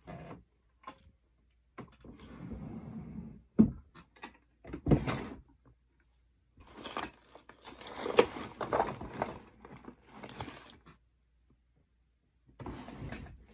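Rummaging through craft supplies in a drawer and on a desk: a few sharp knocks of objects being moved, with stretches of rattling and rustling as things are searched through.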